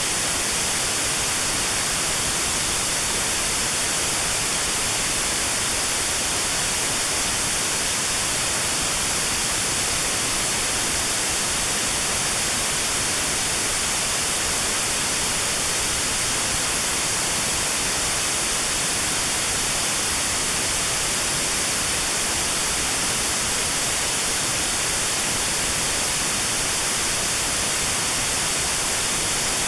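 Steady synthetic white noise, an even hiss with a narrow band around 4 kHz removed: notched noise for tinnitus sound therapy.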